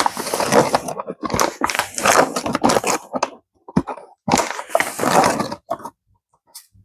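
Rustling and crinkling of dry yeast and its packaging as a tablespoon of yeast is scooped out, in three bursts of a second or two each.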